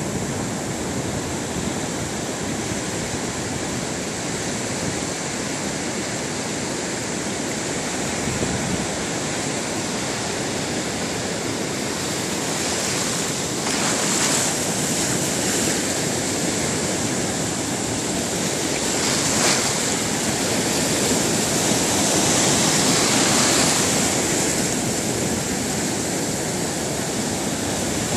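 Sea surf breaking and washing in over rocks and sand, a steady rush of water that surges louder as bigger waves come in, more often in the second half.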